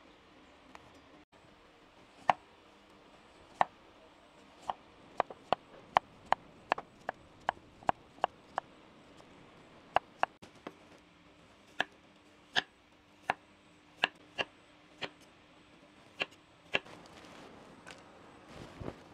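Kitchen knife chopping on a cutting board: about two dozen sharp, separate chops at an uneven pace, briefly quickening to about three a second.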